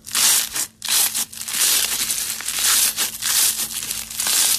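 Slime being squeezed and pressed, a dense crackling, crinkling noise in a run of bursts with brief pauses between them.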